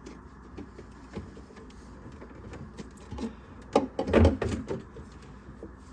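Small clicks from a tool working the clamp on a dishwasher drain hose at the sink drain, then a short burst of louder knocks and clatter about four seconds in as the clamp and hose are handled.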